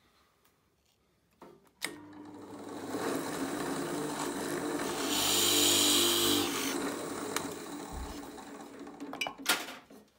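A bench drill press clicks on and its motor runs steadily while the bit bores a hole into a wooden piano key for a lead weight. The cutting is loudest about halfway through, and the sound fades out with a sharp knock near the end.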